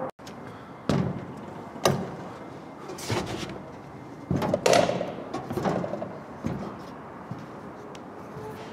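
A string of irregular knocks and thuds, about one a second, with a louder cluster near the middle.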